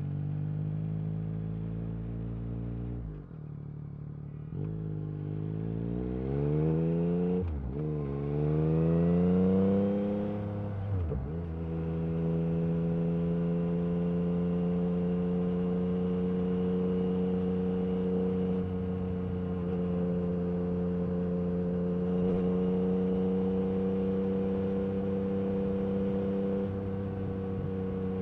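Yamaha MT-09 SP three-cylinder engine through an Akrapovic carbon exhaust, under way. The revs drop about three seconds in, then climb in two rising pulls, each cut off by an upshift. After that the engine holds a steady cruising pitch.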